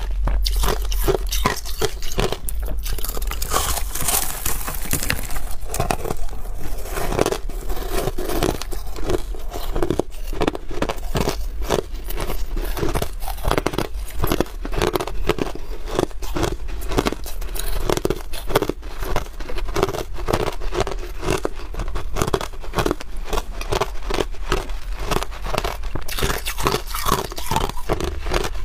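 Hard white crushed ice being chewed close to a clip-on microphone: a continuous run of sharp crunches, several a second.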